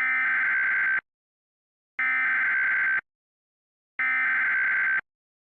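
Emergency Alert System SAME header: three one-second bursts of buzzy, rasping digital data tones, a second of silence between each, marking the start of an emergency alert broadcast.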